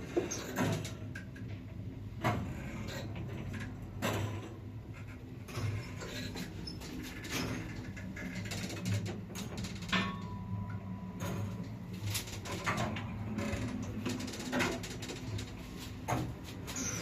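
Samarkand-built passenger lift in operation: a steady electric hum with irregular clicks and knocks from its mechanism, and a brief steady tone about ten seconds in.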